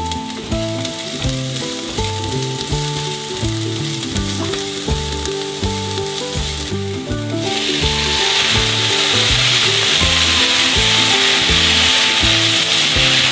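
Food frying in a pan, sizzling steadily under background music; about halfway through the sizzle grows much louder and hissier.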